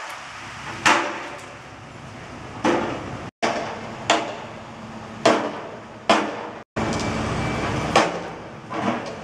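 Hammer blows on a construction site, about seven irregular strikes roughly a second apart, each ringing briefly, over a steady low rumble of site machinery.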